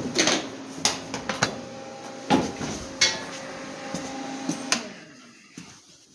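Footsteps on a concrete shop floor and knocks from the handheld camera being carried, a few sharp clicks spaced irregularly, over a steady hum with a few held tones that fades out about five seconds in.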